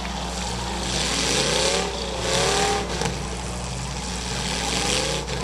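Demolition derby car engines revving, rising and falling in pitch twice, over a steady low engine drone.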